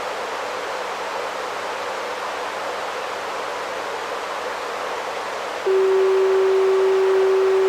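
Steady hiss from a radio receiver tuned to a municipal disaster-prevention radio broadcast, just after its chime melody. Near the end a single steady tone starts abruptly and holds.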